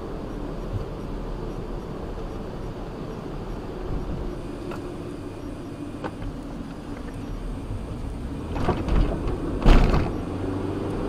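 Car cabin noise picked up by a dashcam as the car drives slowly on wet pavement: a steady low rumble of engine and tyres. Near the end comes a short burst of knocks and rattles, the loudest about ten seconds in.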